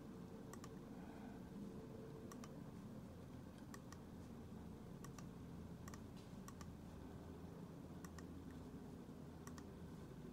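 Computer mouse clicking through menus, seven quick double clicks about one every second and a half, over a faint low room hum.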